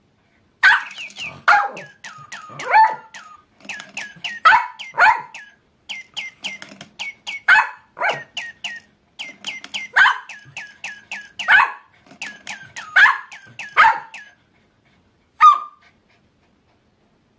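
A Papillon dog yipping and yowling in short calls in step with a toy bird's rapid electronic chirps, so that it sounds as if the dog is singing along. The chirps come in quick runs of short falling whistles. They stop near the end, followed by one last yelp from the dog.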